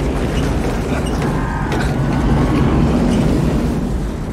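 Steady, loud, low roar of tornado wind.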